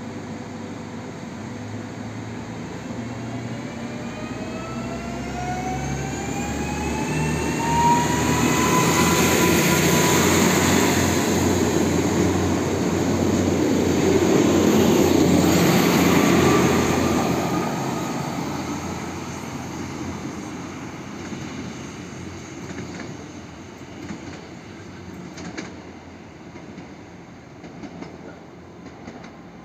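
Newag Impuls 36WEh electric multiple unit pulling away from the platform, its traction whine rising in pitch as it accelerates. The running noise of the cars swells as they pass close by, then fades as the train draws away.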